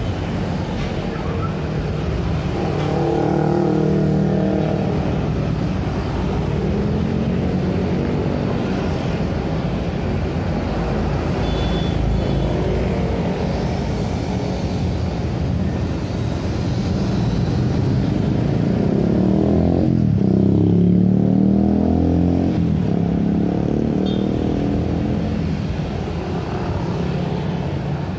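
Busy city road traffic: cars and motor scooters driving past close by, a continuous mix of engines and tyre noise. The traffic swells as vehicles pass, loudest about two-thirds of the way through, where one passing engine's pitch sweeps down as it goes by.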